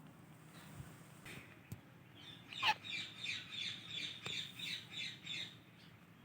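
Indian ringneck parrot calling: one loud, sharp, falling squawk about two and a half seconds in, then a quick run of repeated shrill notes, about three a second, for some three seconds.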